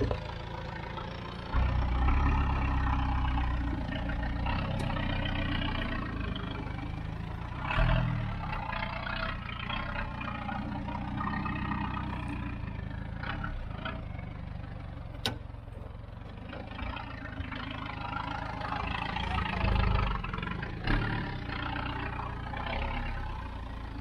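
Lifted four-wheel-drive ute's engine running at low speed as it crawls over rutted dirt, revving up in short surges three times. One sharp click about halfway.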